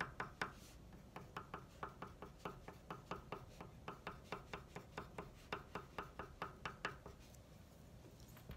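Wax crayon drawn over paper in quick short strokes, each stroke a small tap, about five a second, stopping about seven seconds in.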